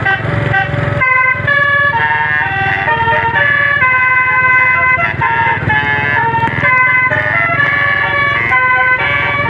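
Bus telolet horn playing a quick melody, each note a chord of several horn tones stepping from pitch to pitch, clearest from about a second in, over a running bus engine.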